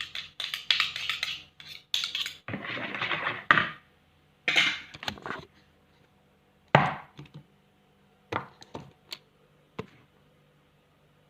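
Kitchen utensils and dishes being handled: a quick run of clinks and knocks, a short scraping stretch about three seconds in, then scattered single knocks.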